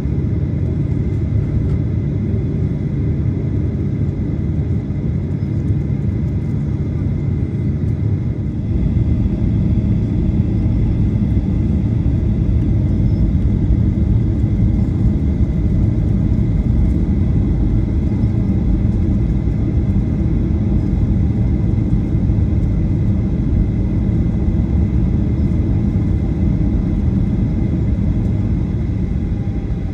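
Cabin noise aboard a Boeing 737-800: the steady rumble of its CFM56-7B engines with a thin steady whine above it, the rumble stepping up louder about nine seconds in and holding there.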